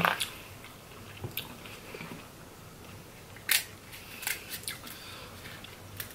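A person chewing and biting seafood in sauce close to the microphone: soft wet chewing with scattered sharp clicks, the loudest about three and a half seconds in.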